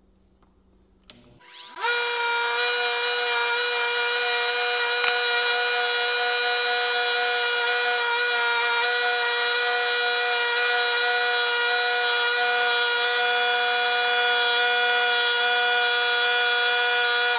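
Bauer bench grinder switched on about a second and a half in, spinning up quickly to a steady whine as a 3M radial bristle brush disc cleans a stainless steel exhaust hanger held against it. At the very end it is switched off and the pitch starts to fall as it winds down.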